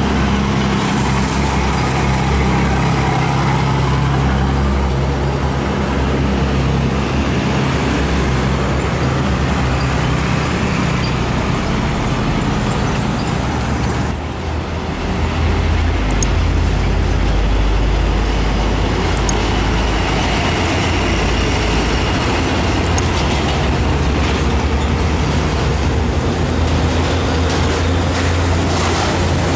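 Heavy trucks' diesel engines running amid road traffic, a steady low rumble that dips briefly about halfway through before picking up again.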